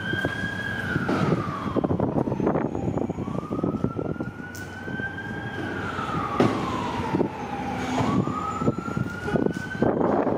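Fire apparatus siren sounding a slow wail: a tone that climbs, holds, then slides down over about four to five seconds, repeated over and over. Underneath it a heavy truck engine is running.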